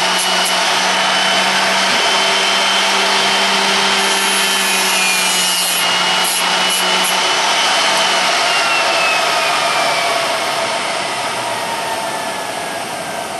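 Electric drill bit sharpener running, its cup grinding wheel grinding the relief on a drill bit clamped in the holder. About eight seconds in, the motor is switched off and its whine falls steadily in pitch as the wheel spins down.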